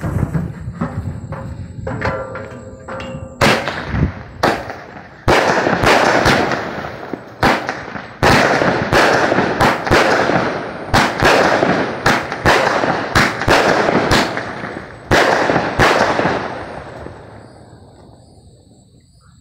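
Consumer firework cake firing: a run of quick small pops, then a volley of about fifteen loud aerial shots, each bursting with a crackling hiss. The shots stop a few seconds before the end and the crackle fades away.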